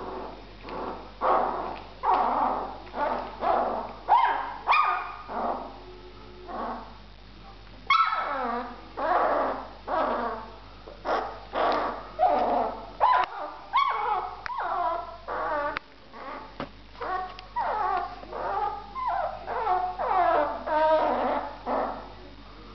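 A twelve-day-old puppy crying over and over, short pitched wailing cries about one or two a second, many of them falling in pitch, with a weaker stretch about a third of the way in. It is the cry of a hungry pup calling for milk.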